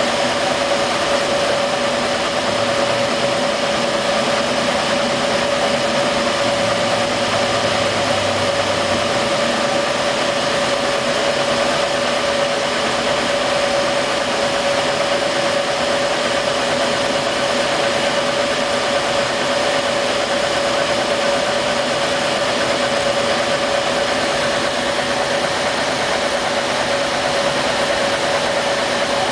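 Laser engraver running while it etches, its head moving rapidly back and forth: a steady whirring hum with one constant mid-pitched tone.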